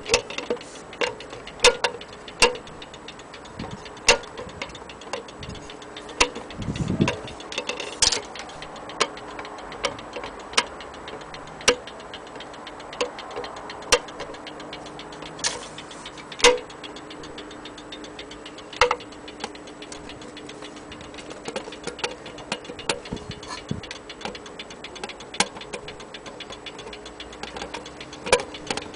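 Ansonia metal-case mantel clock ticking steadily, a regular series of sharp ticks, some standing out much louder than the rest.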